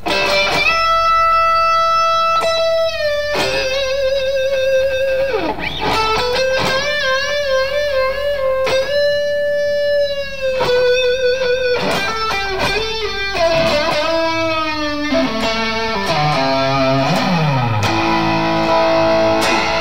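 Electric guitar played through a Valeton GP-200LT multi-effects pedal on a sweet, long-sustaining lead tone: a slow solo of held single notes with string bends and wide vibrato, then a quick descending run of notes a few seconds before the end.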